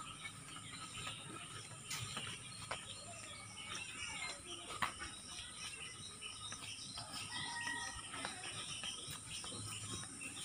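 Outdoor rural ambience: birds chirping in short scattered calls over a steady high-pitched insect drone, with a few faint clicks.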